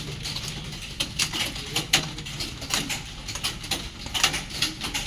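Computer keyboards clicking in quick, irregular keystrokes as several people type at once in a typing test.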